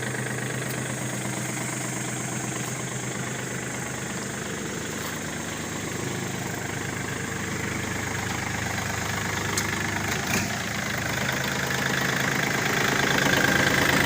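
Kubota L4018 tractor's diesel engine running steadily at idle, growing louder near the end.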